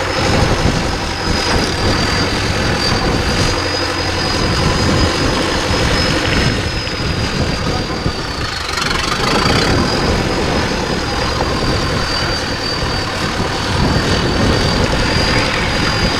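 Off-road 4x4 engine running steadily at low revs, with a thin, steady high-pitched whine above it.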